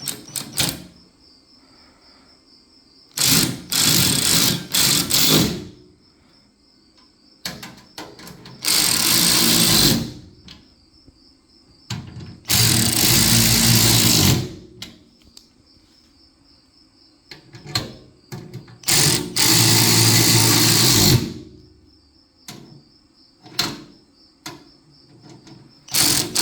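Power drill driving screws into rivet nuts, running in four bursts of a second and a half to two seconds each with short pauses between.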